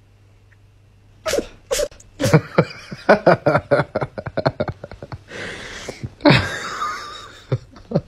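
Cat sneezing repeatedly, set off by fingers touching its nose. About a second in come a rapid run of short, sharp sneezes, then two longer, noisier sneezes in the second half.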